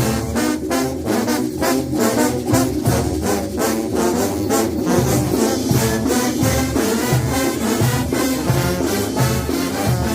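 Mexican banda brass band playing, massed tubas carrying the bass line under trombones and trumpets, with a steady beat of percussion strokes.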